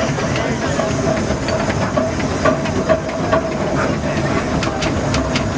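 Steam traction engine running: a steady hiss of steam with irregular clanks and ticks from the machinery, a few sharper knocks around the middle.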